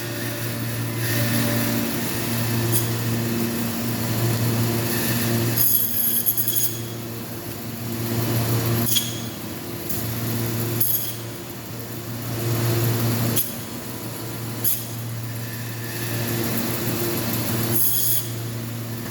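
A meat bandsaw running steadily as it cuts through carcass meat. Its level swells over several stretches of a few seconds each, with a sharp knock every few seconds.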